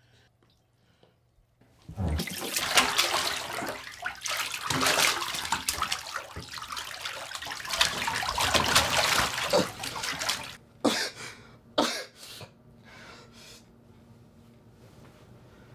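Bathtub water splashing and churning as a person thrashes while being held under. It starts suddenly about two seconds in and runs loud for some eight seconds, then breaks into a few separate short splashes and fades down.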